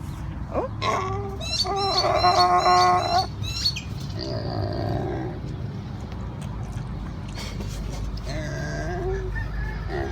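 A farm animal calling: a run of loud, drawn-out pitched calls about one to three seconds in, with higher chirps over them, then a few weaker calls later on.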